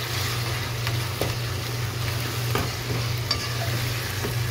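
Chicken mince with tomatoes frying and sizzling in a non-stick pot while a plastic spatula stirs it, scraping against the pan a few times. A steady low hum runs underneath.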